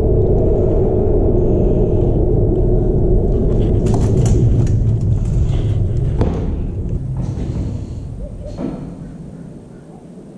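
Traffic on the concrete road bridge overhead, a loud low rumble that holds steady for several seconds and then fades away near the end. A few sharp clicks from handling rod and tackle come in between.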